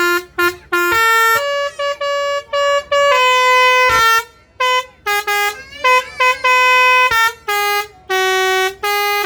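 Bus telolet (basuri) horn playing a tune: a quick string of loud, steady horn notes jumping between pitches, some short blips and some held for nearly a second.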